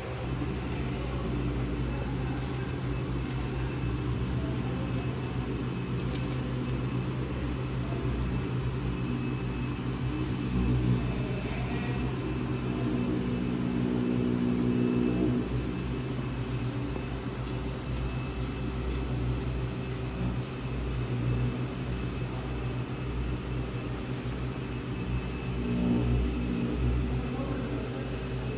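Steady low mechanical drone with a pitched hum, swelling slightly a few times.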